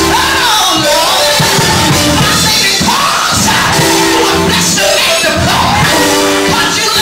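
Loud gospel music in church, with sustained chords and voices singing and shouting over it.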